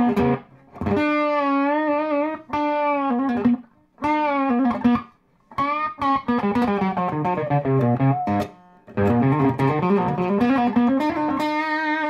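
Electric guitar with a P90 pickup and a silicon-diode tone circuit, played through a Peavey Bandit amplifier. It plays about five short lead phrases of held single notes with string bends and vibrato, with brief pauses between them.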